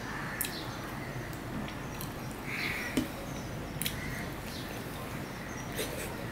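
Close-up mouth sounds of eating rice and moringa drumsticks by hand: chewing, with a few sharp smacking clicks and one short louder smack about three seconds in.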